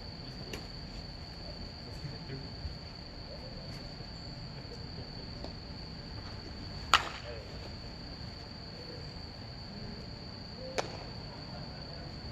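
Crickets chirring in one steady high tone throughout. About seven seconds in comes a loud, sharp smack as a pitched baseball arrives at the plate, and there is a fainter smack near the end.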